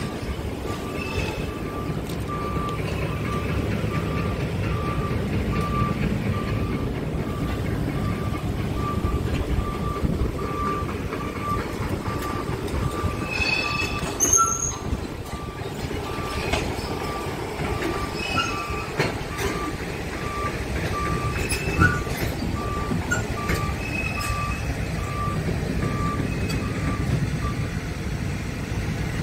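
Scania R tractor unit's diesel engine idling steadily, with an electronic warning beep repeating about once a second over it until the beeping stops near the end.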